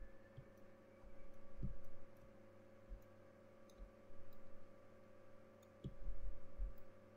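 Faint scattered clicks and low bumps from a computer input device being handled on a desk during sculpting strokes, over a steady electrical hum. The bumps come in three short spells.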